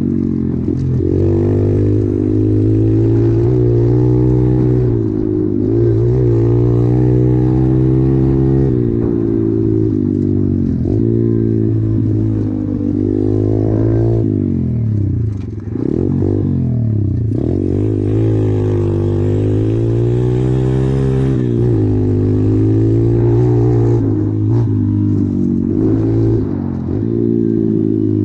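SSR 125 pit bike's single-cylinder four-stroke engine running under way, the revs rising and falling over and over with throttle and gear changes. About halfway through the revs drop briefly, then pull back up.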